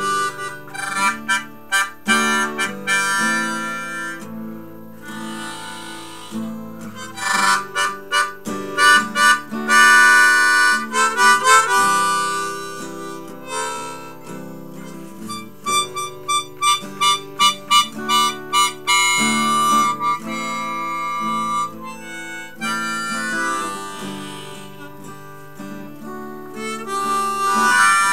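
Harmonica played in a neck rack over a strummed acoustic guitar, chords and melodic lines with passages of short repeated, pulsing notes.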